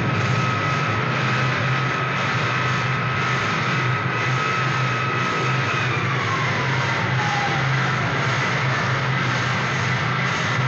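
Goregrind album audio: a dense, steady noisy drone, like a jet or aircraft engine, under a low hum, with a high held tone that slides downward about six to seven seconds in.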